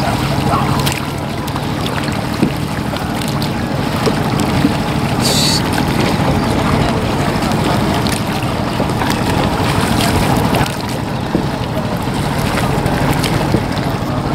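Ride in a wooden rowing boat: steady water and wind noise on the microphone as the boat is rowed, with a faint low hum underneath and a brief high chirp about five seconds in.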